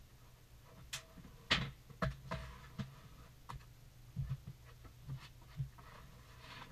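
Irregular taps and knocks of floor tiles and tools being handled and set down on a plywood subfloor during a tile install, the loudest about a second and a half in.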